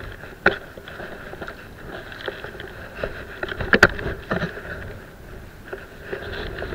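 Steady wash of wind and sea water, with a sharp knock about half a second in and a louder cluster of knocks near four seconds.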